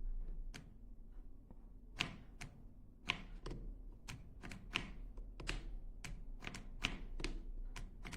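A series of light, sharp clicks and taps at an uneven pace, roughly two a second, over a low steady hum.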